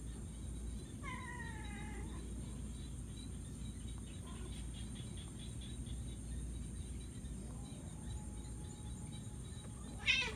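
Cats meowing: one drawn-out meow, falling slightly in pitch, about a second in, then a short, sharp cry that slides steeply down in pitch near the end, the loudest sound, over a low steady rumble.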